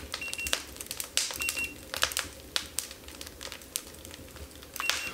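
A handheld infrared thermometer gives short high electronic beeps as it takes temperature readings. There are three beeps: one near the start, one about a second and a half in, and one near the end. Scattered light clicks and crackles sound throughout.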